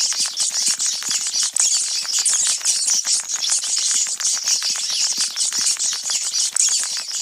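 A pack of rats squeaking and chittering together: a dense, continuous high-pitched squealing shot through with rapid scratchy clicks.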